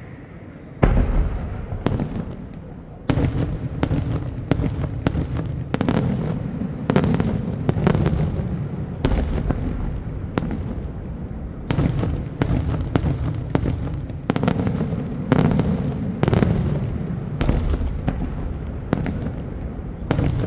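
Daytime aerial fireworks going off: a rapid string of loud shell bursts, about one or two bangs a second, with a low rumble between them. The first big bang comes about a second in.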